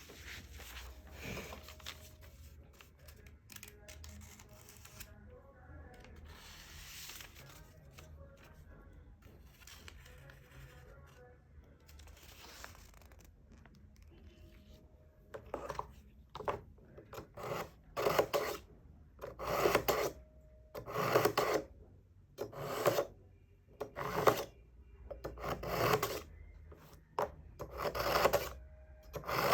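Knife blade scraping through a kitchen knife sharpener: faint, irregular strokes at first, then from about halfway loud rasping strokes about once a second.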